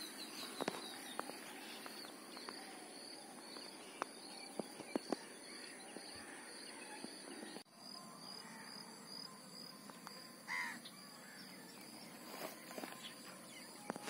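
Faint outdoor ambience: insects chirping in a steady high repeating pattern, scattered small clicks, and one short bird call about ten seconds in.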